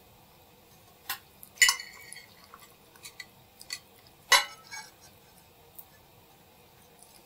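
Metal cutlery clinking against a dish in a few separate, sharp clinks. The loudest come about a second and a half in and again past four seconds, the first ringing briefly.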